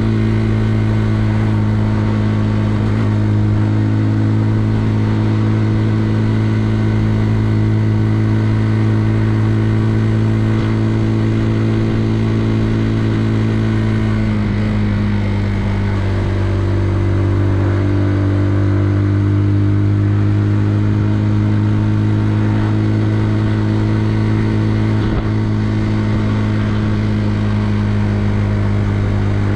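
Benelli Leoncino 125's single-cylinder four-stroke engine running at steady revs. About halfway through, the revs fall to a lower pitch and then hold steady again.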